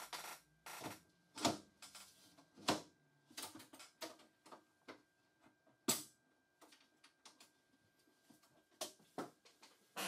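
Aluminium side panel of a Mac Pro tower being fitted back onto the case: a run of sharp metal knocks, scrapes and clicks as it is set in place and pressed shut. The loudest knocks come about a second and a half in, near three seconds and near six seconds.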